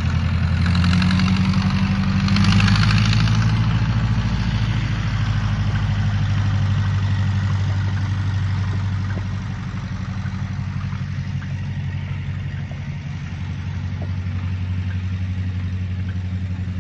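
Engine of a small vintage tractor running at a steady pace as it tows a loaded trailer past. It is loudest in the first few seconds, then drops off after about nine seconds as the tractor draws away.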